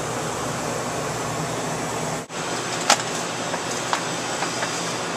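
Steady, even rushing noise with no clear tone, broken by a brief dropout a little over two seconds in, followed by a few sharp clicks.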